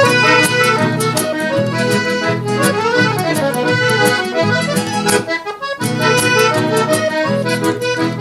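Accordion playing an instrumental passage of a traditional gaúcho dance song between sung verses, over a band keeping a steady beat. The music dips briefly about five and a half seconds in.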